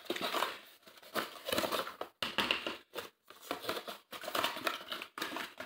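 Cardboard accessories box being handled and opened: irregular bursts of rustling and crinkling packaging.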